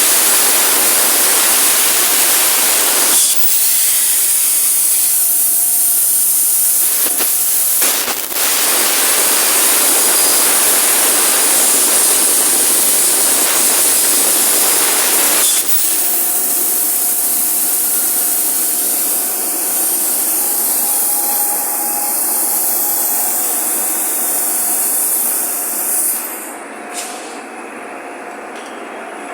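CNC plasma torch cutting a small steel plate: a loud, steady hiss with a faint whine, which shifts a few times and drops away about 26 seconds in as the cut ends.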